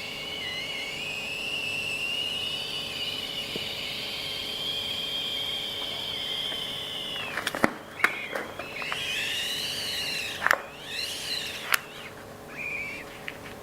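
Balloon squealing as air escapes through its stretched neck: one long, high, slightly wavering squeal lasting about seven seconds, then two sharp snaps and a few shorter squeaks.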